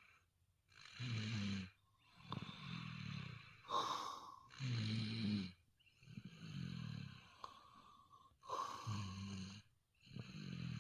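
People snoring. Each cycle has a short, loud snore followed by a longer, softer one, with brief silences between, repeating about every four seconds.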